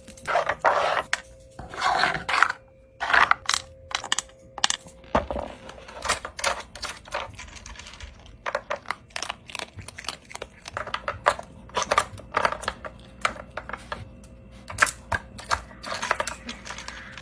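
Hard plastic dog puzzle feeder clattering as a dog noses and pushes its sliding pieces and lift-out pegs to get at the kibble. The sound is a quick, irregular run of clicks and knocks, with longer rattles in the first few seconds.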